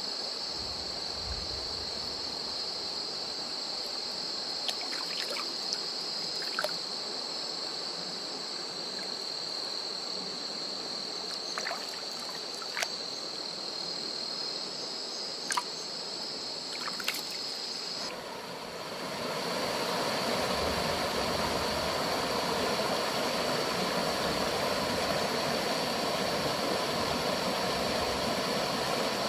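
Steady high-pitched chirring of night insects with a few small clicks. About two-thirds of the way through, it gives way to a louder, steady rush of flowing stream water.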